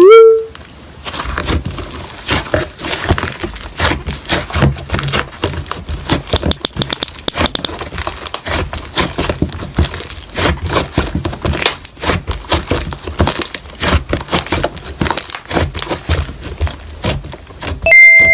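Slime being squished and poked, making dense, irregular sticky crackling and clicking. A short rising sound effect plays at the start, and a brief chime sounds near the end.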